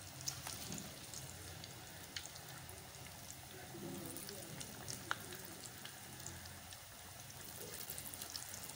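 Besan pakoras deep-frying in hot oil: a steady sizzle with scattered crackles and pops, and a few sharper ticks, the loudest about five seconds in.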